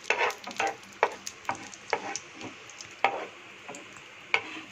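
Cashew pieces frying in ghee in a nonstick pan, stirred with a wooden spatula: irregular knocks and scrapes of the spatula against the pan over a faint sizzle.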